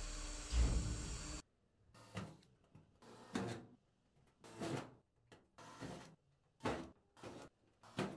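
Hand tools being picked up, slid and set down on the van's steel roof: a longer, louder scrape in the first second and a half, then short clunks and scrapes about once a second.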